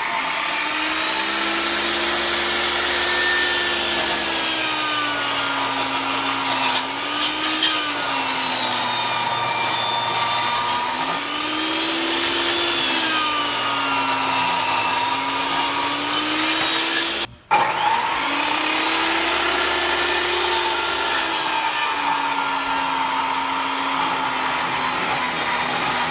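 SKILSAW SPT99 worm drive table saw cutting wood. The motor and blade whine sags in pitch and recovers again and again as the blade takes the cuts. There is one sudden brief cut-out about two-thirds of the way through.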